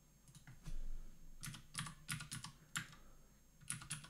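Computer keyboard keys pressed in several short, quick runs of clicks as a value is typed in, with a brief low bump about three-quarters of a second in.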